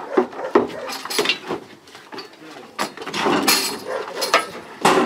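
Repeated knocks and clanks of the steel rails and frame of a cattle crush as a horned bull shifts inside it, with a denser clattering stretch in the second half.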